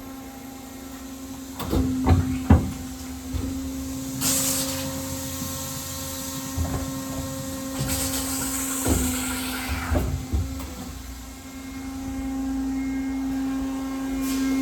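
Pallet changer of an OKK HP500S horizontal machining center running its cycle over a steady machine hum: a few clunks about two seconds in, a burst of air hiss about four seconds in and a longer one around eight seconds in, then more clunks near nine and ten seconds as the pallet moves and seats.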